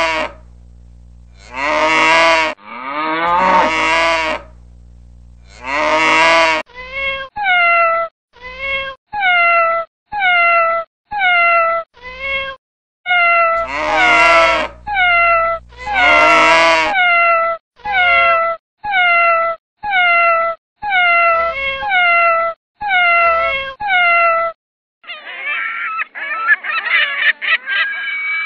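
A calf mooing, a few long calls about two seconds apart. Then a domestic cat meowing over and over, about once a second, with a couple of longer drawn-out meows among them. Near the end, gulls calling over one another.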